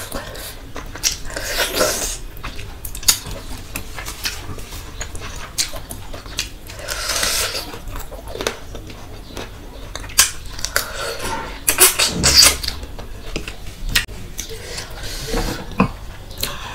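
Close-up eating sounds: fingers squelching through rice and curry against a steel plate, with wet chewing and lip-smacking clicks. Three longer hissing sounds come a few seconds apart.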